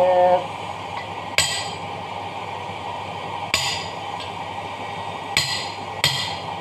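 Hammer striking a steel punch set in a bearing bore of a dough mixer's cast gearbox housing, driving a ball bearing. Four sharp metallic blows, each with a brief ring, the last two close together.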